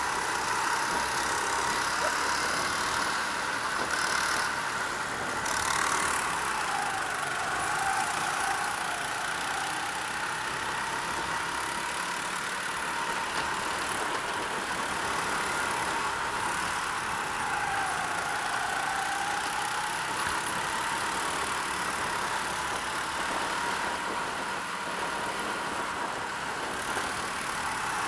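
Go-kart engine running at speed, a steady high-pitched drone that dips in pitch a few times as the kart slows into corners and then picks up again.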